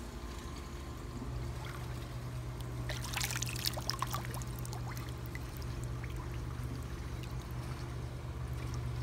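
Pool water splashing and trickling around a Labrador paddling, with a burst of splashes and drips about three seconds in, over a steady low hum.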